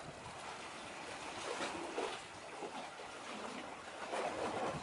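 Outdoor harbour-side ambience: an uneven, shifting wash of wind and water noise, with no clear single event.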